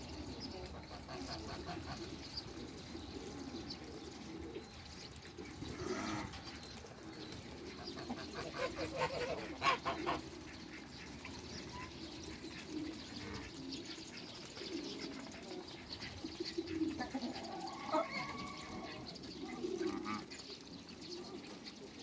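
Backyard flock of domestic geese and Muscovy ducks calling: a steady low chatter of soft calls, with a louder run of quick calls about nine seconds in and a few higher honks near the eighteen-second mark.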